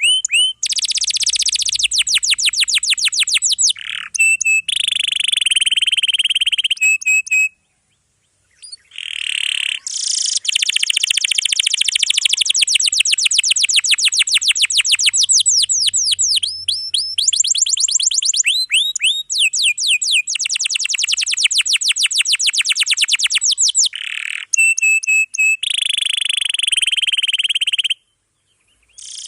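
Domestic canary in full song, singing long rolling trills of rapid, high repeated notes in dense phrases with short breaks. There is a brief silence about seven seconds in and another near the end.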